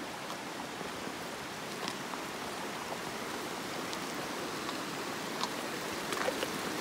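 Steady rushing of a shallow creek's running water, with a few faint clicks over it.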